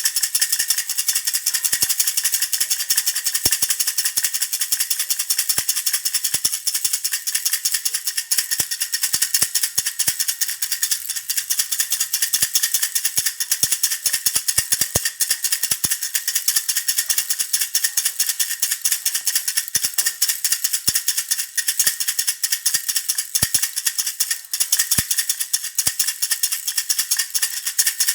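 A baby's hand rattle (jhunjhuna) shaken without pause, making a dense, high rattling with occasional sharper clicks.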